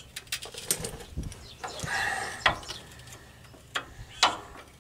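Hand tool clicking and scraping on a rusty steel brake line fitting under a truck frame: a handful of short, sharp metallic clicks, the loudest about two and a half and four seconds in.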